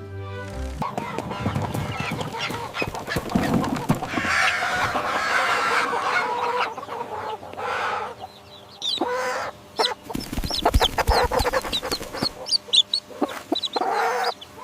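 Chickens clucking, with a run of short knocks about two-thirds of the way through.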